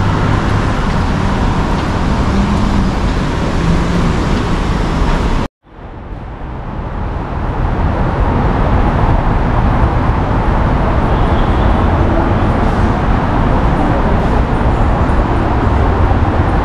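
Steady city street traffic noise. It drops out completely for a moment about five and a half seconds in, then fades back in.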